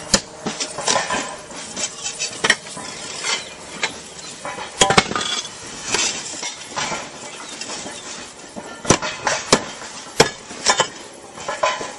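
Roof tiles being lifted and handled, clinking and knocking against each other in irregular sharp clinks.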